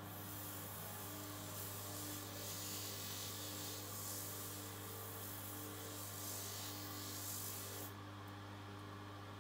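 Bench polishing machine's motor humming steadily while a small metal piece is pressed against the spinning polishing wheel, making a hissing rub that cuts off about eight seconds in as the piece is lifted away.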